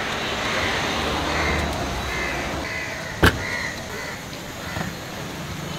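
Crows cawing over and over above a steady hum of street traffic, with one sharp knock a little past three seconds in.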